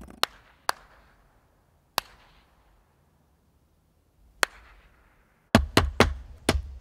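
Sharp single knocks or cracks, each with a short echoing tail, four of them a second or two apart. About five and a half seconds in, a fast run of knocks with deep thuds begins.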